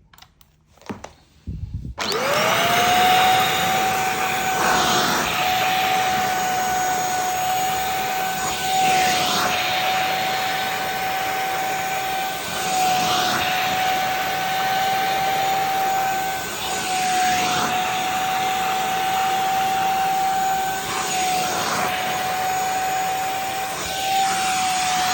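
A MDOLDES handheld bed vacuum cleaner is switched on about two seconds in; its motor spins up quickly to a loud, steady high whine. A swish comes about every four seconds as it strokes across the mattress.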